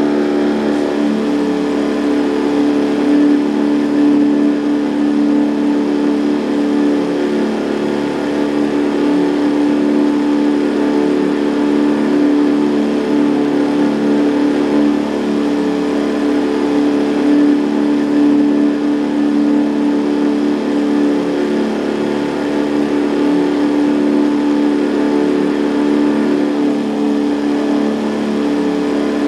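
Boat's outboard motor running at a steady, unchanging speed.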